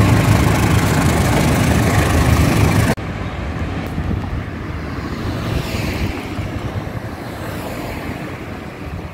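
Loud, dense vehicle rumble that cuts off abruptly about three seconds in, followed by quieter steady roadside traffic noise with a faint falling whine of a passing vehicle near the middle.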